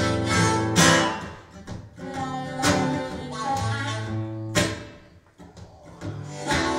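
Blues played live on acoustic guitar and harmonica: strummed chords struck about every two seconds under held harmonica notes. The playing drops away briefly about five seconds in, then picks up again.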